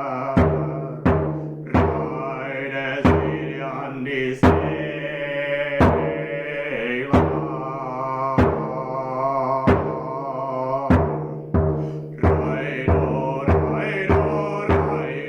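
Hand drum struck in a slow steady beat under a droning, chanted vocal; the beat quickens to nearly two strokes a second about two-thirds of the way in.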